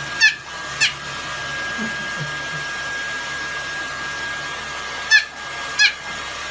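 A white Pomeranian puppy gives short, high yaps, two quick pairs a few seconds apart, each yap dropping in pitch. Under them a hair dryer whirs steadily.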